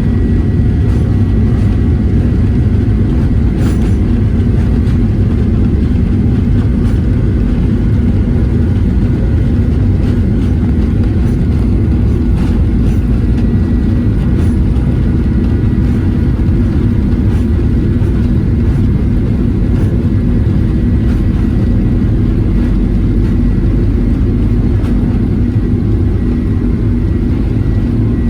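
Cabin noise inside a Boeing 737-900 airliner: its CFM56-7B jet engines and the airflow make a loud, steady low rumble, with a thin steady whine above it.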